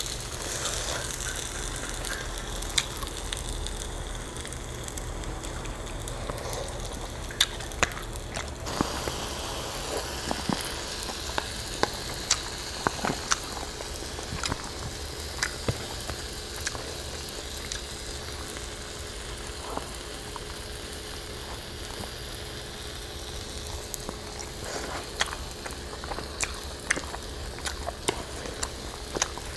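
Pork sizzling steadily on an electric tabletop grill plate, with scattered small clicks and taps from eating with chopsticks.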